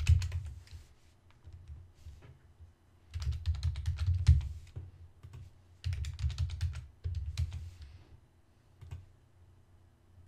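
Computer keyboard typing in short bursts of keystrokes with pauses between, then a single mouse click near the end.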